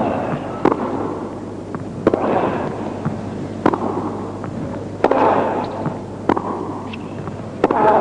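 Tennis rally: a racket strikes the ball sharply about every second and a half, each hit echoing in an indoor arena over a steady hum of crowd and hall.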